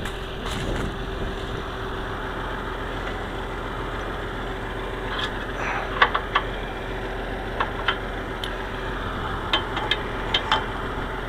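Oliver 1955 tractor engine idling steadily. From about six seconds in come a handful of short, sharp metal clicks as gloved hands work the pins and clips on the stalk chopper's frame.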